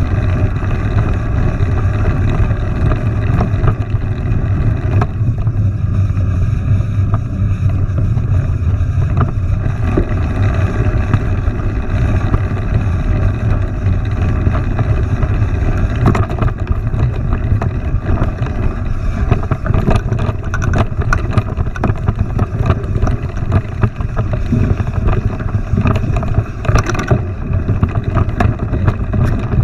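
Steady low wind rumble buffeting the microphone, with scattered clicks and rattles throughout.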